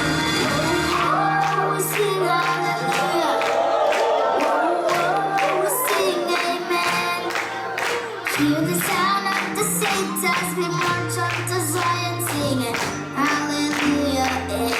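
Recorded worship song, in an instrumental stretch without sung lyrics: steady drum beats, a moving bass line and a wavering lead melody.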